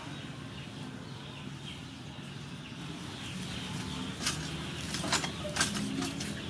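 Rural outdoor background of birds calling, with a few short sharp sounds in the second half.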